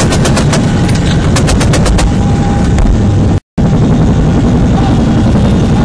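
Loud, steady drone of a military helicopter's engines and rotors heard from inside the troop cabin. A rapid run of sharp cracks comes up to about half a second in and again around one and a half to two seconds in, and the sound cuts out completely for a moment about three and a half seconds in.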